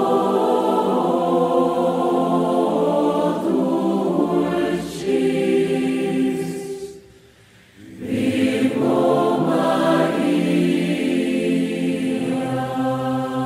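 A choir singing long held notes, breaking off briefly about seven seconds in before the voices come back in.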